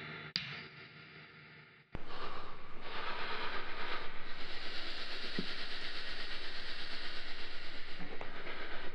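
A steady rushing noise with a fast, even flutter starts suddenly about two seconds in, after the tail of a music passage fades out.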